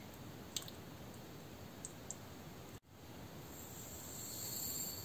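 Granulated sugar poured from a small glass into a glass mixing bowl, a high hiss that builds over about the last second and a half. Before it there are a few faint light clicks.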